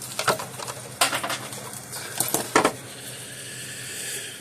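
Small tools and parts clicking and tapping as they are handled on a workbench: a few sharp clicks, the loudest about two and a half seconds in.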